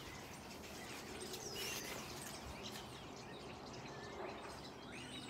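Birds chirping: several short calls scattered over faint, steady outdoor background noise.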